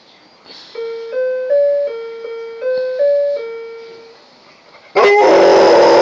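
An electronic doorbell plays a short chime tune of about eight clean notes. About a second before the end, a dog suddenly breaks into a loud howl, much louder than the chime.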